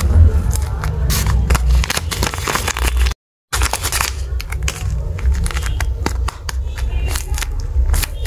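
Tape-covered paper crinkling and rustling as hands squeeze a paper squishy and open a paper blind bag, a dense run of small irregular crackles over a low rumble. The sound cuts out completely for a moment about three seconds in.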